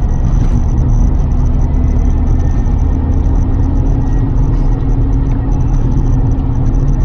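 Lotus Carlton's rebuilt twin-turbo straight-six driving at a steady pace, an even engine drone over low road rumble.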